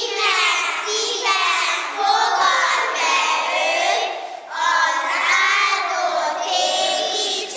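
A group of children singing together, with a short breath between two phrases a little past the middle.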